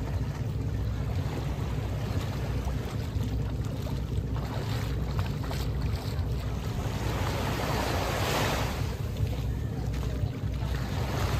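Small waves washing at the shoreline and wind on the microphone, over a steady low hum. A louder whoosh swells up about eight seconds in.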